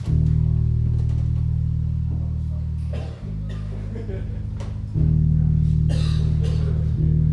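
Live rock band playing: electric guitar and bass guitar hold long, low chords that change about every two to three seconds, with a few cymbal crashes from the drum kit.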